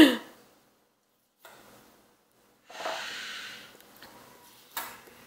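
A person breathing out hard: a short falling vocal sound right at the start, then a breathy exhale lasting about a second, and a short sharp puff of breath near the end.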